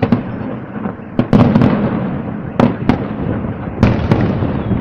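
Fireworks display: aerial shells bursting in about eight sharp bangs, several in quick pairs, over a continuous rumble from the rest of the barrage.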